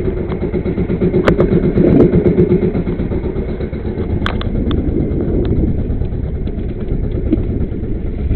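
Engine of a motorized outrigger fishing boat (banca) running steadily, with a couple of sharp clicks about a second in and about four seconds in.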